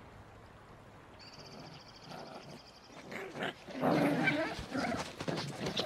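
Wolf pups making short yelps and small growls as they play, starting about three seconds in after a quiet opening.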